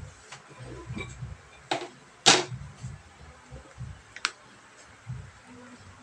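Handling noise as a long ruler is picked up and moved over a glass tabletop: three sharp knocks and clicks, the loudest about two seconds in, with faint low bumps between them.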